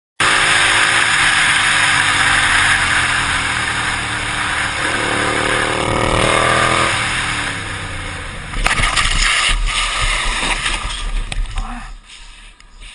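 Motorcycle engine running under heavy wind noise on a helmet-mounted microphone, its pitch rising as it speeds up. About two-thirds through there is a sudden crash, followed by clattering and scraping as the motorcycle goes down and slides on the road, and it goes quiet about a second before the end.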